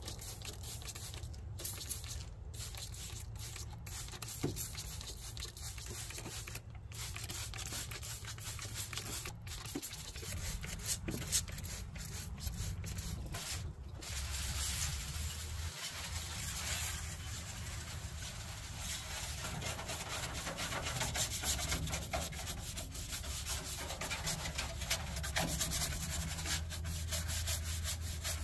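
Brush scrubbing the underside of a pickup's hood: a rubbing scratch that turns into quick, rhythmic back-and-forth strokes in the second half. Near the start there are a few sharp squirts from a trigger spray bottle of cleaner.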